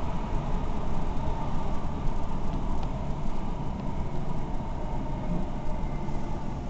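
Running noise heard inside a Class 455 electric multiple unit carriage: a steady low rumble with a faint steady tone above it.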